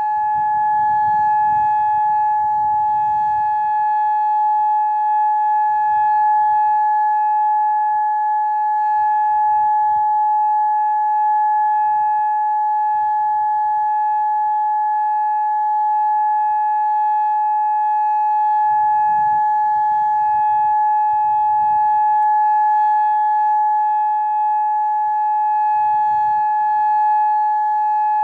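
Federal Signal Modulator electronic warning siren sounding one steady, unbroken tone, with no rise or fall in pitch, during its scheduled test.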